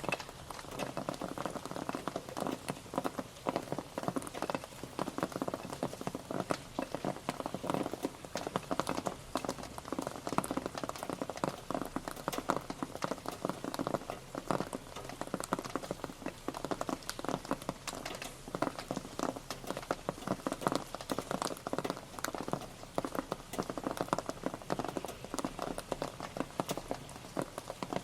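Steady rain pattering, with many irregular drops tapping on a hard surface in a dense, continuous patter.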